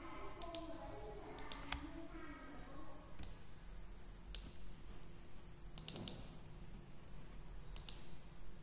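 Computer mouse clicking: a handful of scattered single clicks, about a second or more apart, while a line shape is picked and drawn in a word processor. A low steady hum lies under them.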